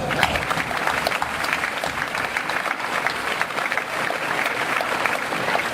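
Audience in a hall applauding and cheering, a steady patter of many hands clapping.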